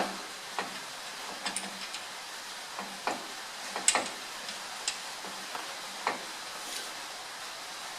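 Irregular light metallic clicks and taps, about ten, unevenly spaced, over a steady low hiss: a bolt and the cross shaft being handled and tried in a GM 10-bolt rear differential that is not yet aligned.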